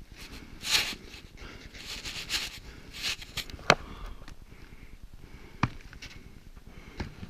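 A skier's own breathing and movement close to the microphone: short breaths and rustles at irregular intervals, with two sharp knocks of gear, one about halfway through and one later.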